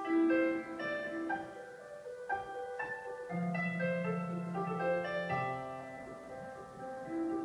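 Piano music: a melody of single struck notes, each fading away, with a lower note held for a couple of seconds a little after the middle.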